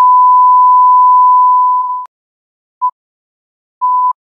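Television colour-bar test tone: a steady, pure beep at about 1 kHz that cuts off about two seconds in, followed by a very short blip and then a slightly longer beep at the same pitch.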